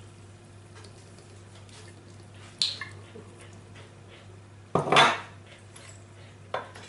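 A glass olive-oil bottle handled over a glass baking dish and set down on a stone countertop: a light knock a couple of seconds in, then a loud knock about five seconds in as it is put down, over a faint steady hum.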